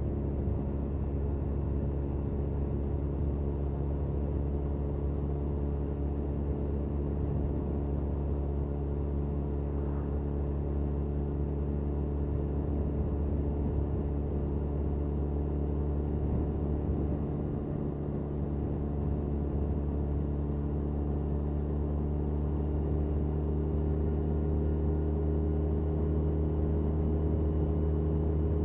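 Benelli 502C's 500 cc parallel-twin engine through its stock exhaust, cruising at a steady throttle, heard onboard from the bike itself. The note dips briefly about two-thirds of the way in and grows a little louder near the end.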